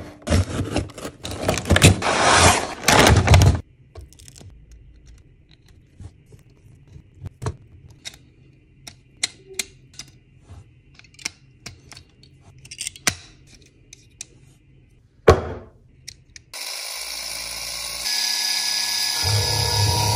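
A cardboard box being opened, with loud rustling and scraping for the first few seconds, then sharp plastic clicks as the toy is handled and snapped together. About sixteen seconds in, the battery-powered self-balancing unicycle robot toy is switched on and runs with a steady whir that grows louder near the end.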